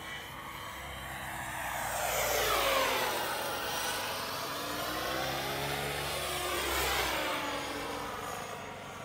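Turbine-powered RAW 700 radio-controlled helicopter flying passes, its turbine and rotor sound swelling and fading with a pitch that sweeps down and back up as it goes by. It is loudest twice, about 3 s and 7 s in.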